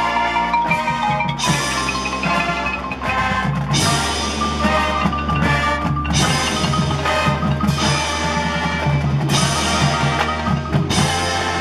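Marching band playing, with the front ensemble's marimbas and other mallet percussion and the drums standing out among the ensemble.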